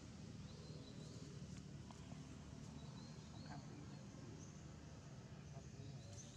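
Faint outdoor ambience: a low steady hum with a few brief, faint high chirps.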